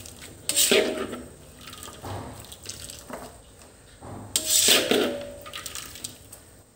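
A metal spatula scooping stir-fried spinach out of a steel wok, the cooking liquid dripping and splashing back into the pan. The two loudest scoops come about half a second in and at about four and a half seconds.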